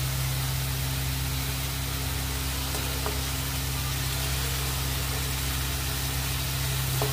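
Spiced onion-ginger-garlic masala frying and sizzling in oil in a kadhai while a steel spoon stirs it, with a few faint scrapes of the spoon. A steady low hum runs underneath and is the loudest sound.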